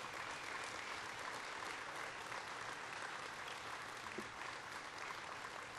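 Audience applauding, a steady spread of many hands clapping.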